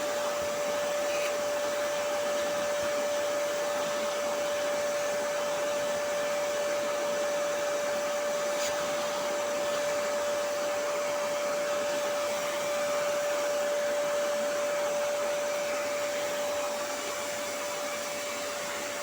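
Vacuum cleaner running steadily with a constant high-pitched whine over its rushing air, sucking through the bare wand tube with the brush attachment taken off.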